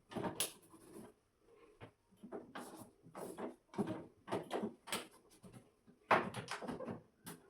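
Irregular plastic clicks and knocks as the washing machine's filter cover is handled and fitted back into place.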